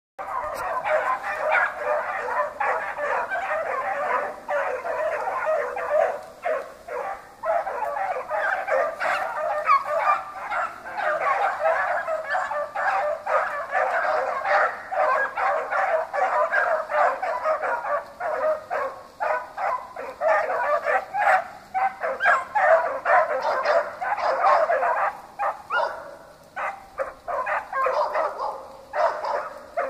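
A pack of gundogs barking continuously, many short barks from several dogs overlapping, with a few brief lulls.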